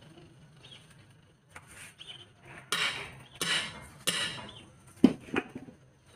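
Steel tyre iron clanking and scraping against a truck's steel wheel rim as the tyre bead is levered by hand: three scraping metal strikes a little under a second apart, then two sharper knocks near the end.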